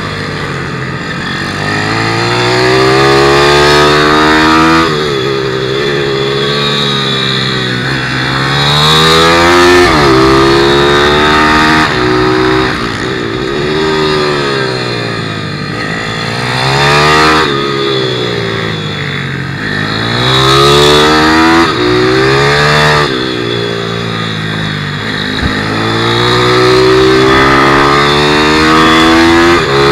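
A 160cc single-cylinder four-stroke pit bike engine, heard onboard at racing pace, revving up along each straight and dropping sharply when the throttle is shut for the corners. This repeats many times over.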